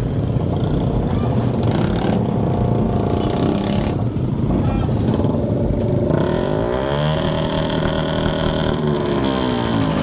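Several motorcycle engines running and revving hard with loud exhausts. About seven seconds in, one engine is revved up sharply, held at high revs for a couple of seconds, then let fall back.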